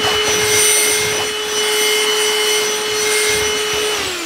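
VacLife VL189 cordless handheld vacuum running with a steady whine, with gritty scraping as its nozzle is worked over carpet and vinyl floor picking up spilled sand. Near the end the whine falls in pitch as the motor winds down.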